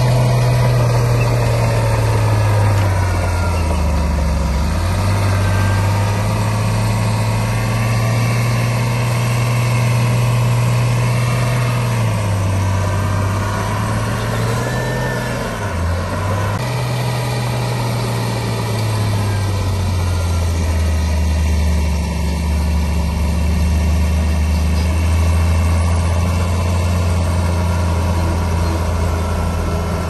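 Heavy diesel engine of earthmoving machinery running loudly. Its pitch dips and recovers several times, then settles lower for the last third.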